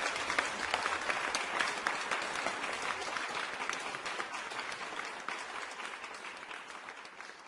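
Applause: many hands clapping, fading out steadily toward the end.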